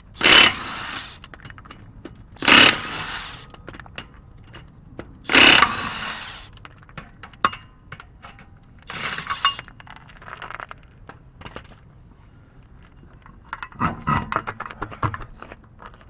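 Impact wrench fired in three short bursts of about a second each, a few seconds apart, working the strut's bolts loose, with a weaker fourth burst later. Metal clinks of loose parts or tools follow near the end.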